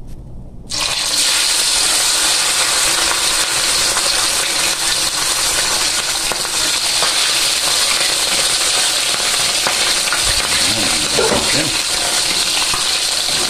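Pieces of salted, boiled chicken dropped into hot oil in a wok, setting off sizzling that starts suddenly under a second in and keeps on steadily as they fry.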